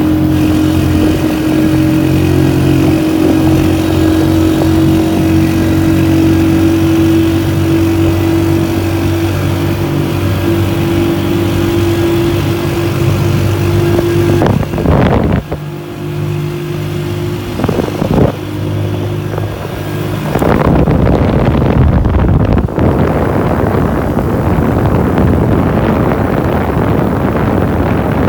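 Motorcycle engine running at a steady pitch while riding through a road tunnel. It falters briefly about halfway through, and from about two-thirds of the way in, wind buffeting on the microphone covers it.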